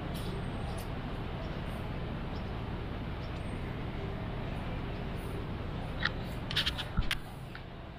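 Steady city background noise with a low hum of distant traffic. A quick cluster of short, sharp clicks comes about six to seven seconds in.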